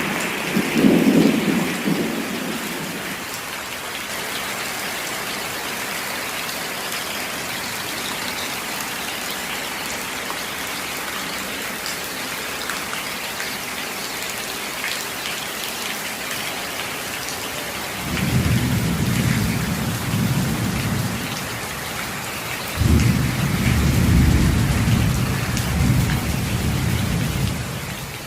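Steady rain falling, with rolls of thunder. One rumble is dying away at the start, then two more come in about two-thirds of the way through, the last one the longest. The sound fades out at the very end.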